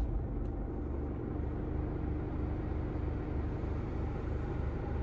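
Isuzu-built diesel engine of a Mazda BT-50 ute idling steadily with an even low pulse, just after being started. A faint higher hum fades out about three seconds in.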